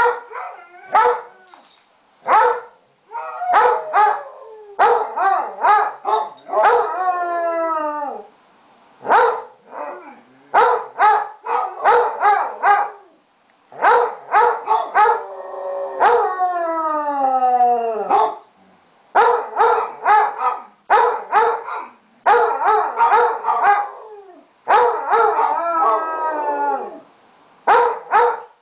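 Basset hounds baying in runs of short, loud barks, broken twice by a long howl that falls in pitch. It is separation crying, set off by their owners leaving.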